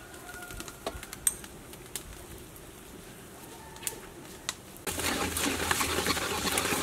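A few light clicks of a spoon against a bowl and pot, with a bird calling faintly in the background; then, about five seconds in, melted palm sugar starts sizzling and bubbling in a steel pot as a ladle stirs it, which is louder.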